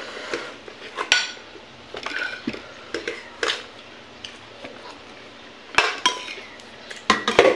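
A spoon scraping and knocking against a metal rice pot as cooked rice is scooped out, with scattered clinks and a few louder knocks about six seconds in and near the end.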